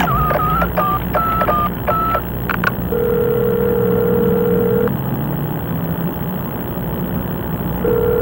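Touch-tone telephone being dialed: a quick run of about seven keypad beeps. A couple of clicks follow, then the ringing tone in the earpiece: one ring of about two seconds, a pause, and the next ring starting near the end. A steady low hum runs underneath.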